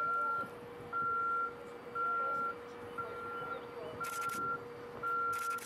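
A vehicle's reversing alarm beeping steadily, about once a second, with six evenly spaced beeps over a steady hum.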